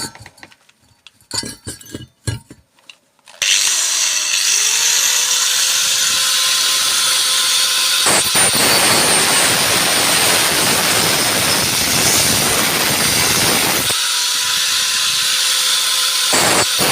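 An angle grinder is switched on about three seconds in, after a few handling knocks, and spins up. It cuts into a microwave's finned metal part, running rougher and louder from about eight seconds in, eases near the end, stops for a moment and starts again.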